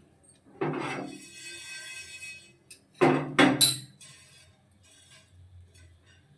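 Metal utensils clanking against a steel pan in which cloves and black pepper are being dry-roasted. The first strike rings on in a high metallic tone for about two seconds, and a second clatter comes about three seconds in, followed by lighter scraping and clinks.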